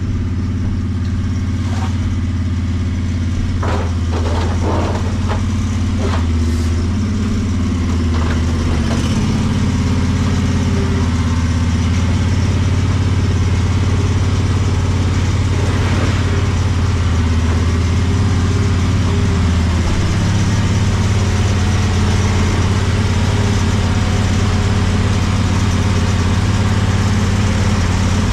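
Vehicle engine running steadily with a low, even hum, a few short knocks or clicks in the first several seconds.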